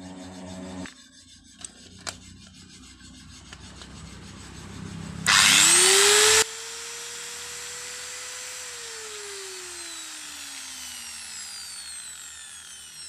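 Electric angle grinder switched on: the motor spins up with a rising whine and a loud burst for about a second, then the switch cuts it and the motor winds down, its whine falling slowly over several seconds. The repaired switch now turns the grinder off.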